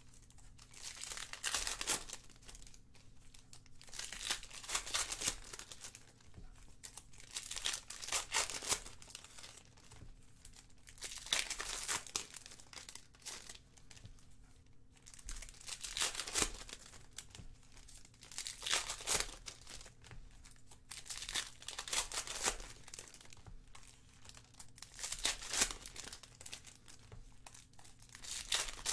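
Trading card packs being torn open and their cards handled: plastic pack wrappers crinkling and tearing in repeated bursts every two or three seconds, with a faint steady hum beneath.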